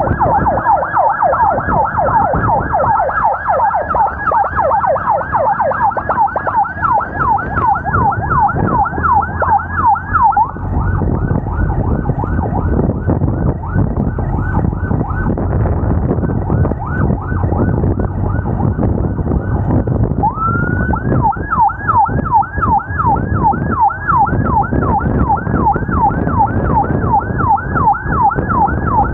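Emergency vehicle siren on a fast yelp, about four falling wails a second. It cuts out for about ten seconds in the middle, then starts again with one rising wail and goes back to the fast yelp. Steady road and engine noise runs under it.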